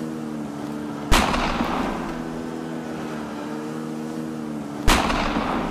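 Two gunshots, about a second in and near the end, each a sharp crack with a short echo, over a snowmobile engine running steadily.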